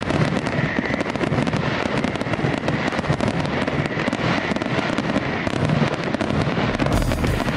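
Fireworks crackling steadily, a dense run of many small pops and bangs. Bass-heavy music comes in near the end.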